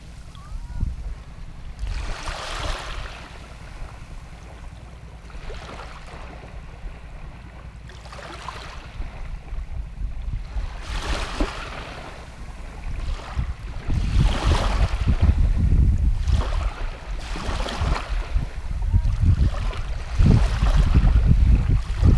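Small waves washing up and draining back over a sandy shore in shallow water, one swish every three seconds or so, with wind rumbling on the microphone that grows louder about halfway through.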